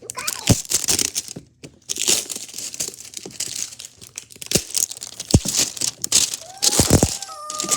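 Plastic toy packaging being handled and torn open: crinkling and crackling with sharp tearing snaps throughout.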